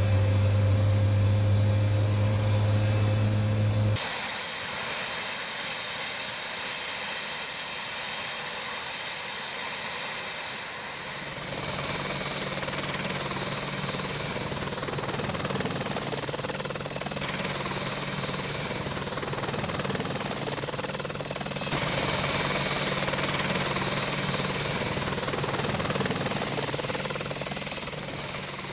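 AH-64 Apache attack helicopter running with its rotors turning: the hiss of its twin turboshaft engines over the regular beat of the main rotor. The sound changes abruptly about four seconds in, from a low steady hum to a loud hiss, and the rotor beat comes in a few seconds later.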